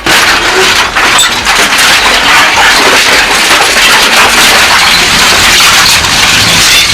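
Industrial shredder chewing through concrete-filled 55-gallon steel drums: a loud, continuous crunching and cracking that starts abruptly.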